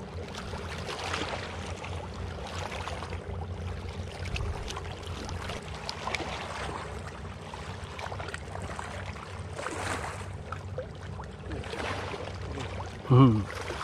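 Lake water lapping and splashing at the waterside, over a steady low rumble. Near the end there is one brief loud voice-like sound.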